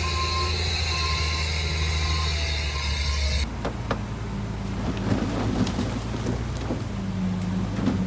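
Diesel engines of heavy earthmoving machinery running with a steady low drone, at first with short repeated beeps like a reversing alarm. About three and a half seconds in, the sound cuts to another machine's engine, with irregular clanks and rattles.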